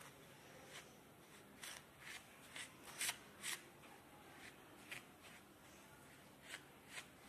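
Faint, short scratchy swishes at irregular intervals as a cloth-wrapped magnet is dragged in circles through dry sand, the loudest around three seconds in.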